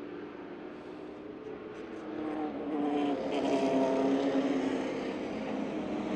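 Several race car engines running hard at racing speed on a short paved oval, their mixed engine notes layered over each other. The sound grows louder about two seconds in, then eases off slightly.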